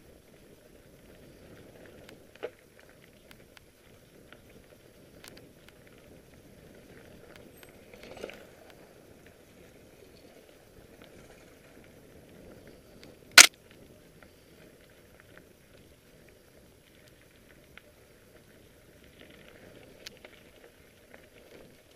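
Mountain bike rolling over a dirt and gravel trail: a steady low rumble from the tyres and ride, with scattered clicks and knocks from the bike over bumps. One sharp, loud knock about thirteen seconds in is the loudest sound, with a smaller bump thud about eight seconds in.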